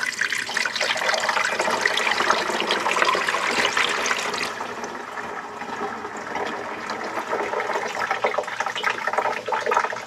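Water poured from a glass measuring cup onto the top fill grille of an ultrasonic humidifier, splashing and running down through it. About four and a half seconds in the pour eases off, and water keeps trickling down inside the unit.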